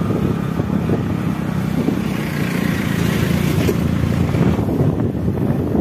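Motorbike engine running steadily under way, with a constant rumble and a haze of wind and road noise; the upper hiss thins out near the end.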